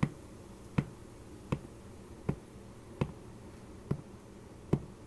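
Footsteps walking at a steady pace, about one step every three-quarters of a second.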